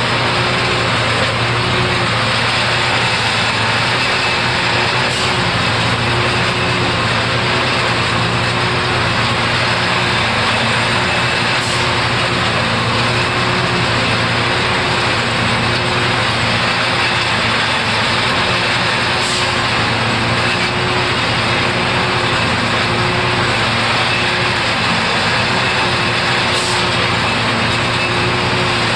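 Heavy diesel engine running steadily, with a short higher tone that repeats about once a second over a constant low hum.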